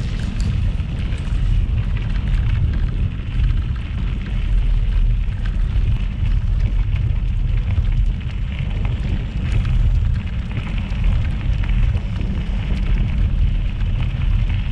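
Steady low wind rumble buffeting the microphone of a camera on a moving mountain bike, over the crunch of knobby tyres rolling on a gravel trail.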